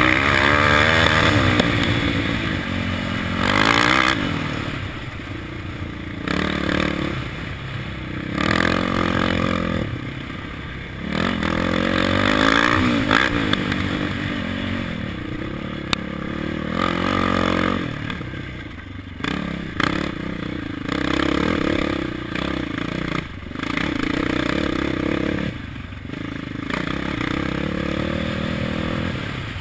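KTM 525 XC quad's single-cylinder four-stroke engine under race load, revving up and backing off over and over as the rider accelerates and shuts off through the course. Knocks and rattles from the machine come through as it crosses rough ground.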